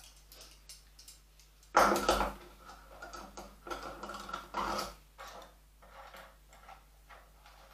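Handling noise of hand tools: a few light clicks, then a loud clatter about two seconds in that keeps rattling and ringing for about three seconds, then scattered clicks as things are put down and picked up.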